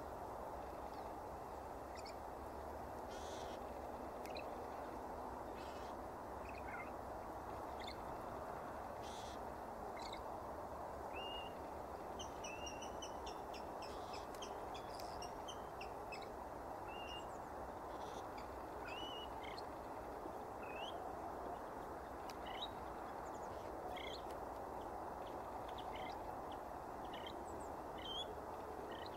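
Great grey shrike singing: a string of short, varied chirps and brief whistled notes, sparse at first and coming thicker after about ten seconds, over steady background noise.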